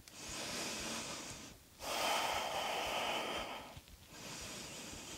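A woman breathing deeply and audibly: three long breaths with short pauses between them, the middle one the loudest.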